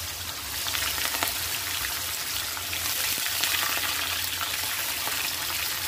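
Sliced raw potatoes sizzling and crackling steadily in hot oil in a kadhai, the water on the fresh slices spitting as it meets the oil.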